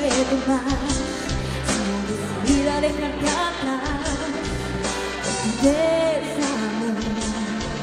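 A young woman sings a pop song through a handheld microphone, holding long notes, over backing music.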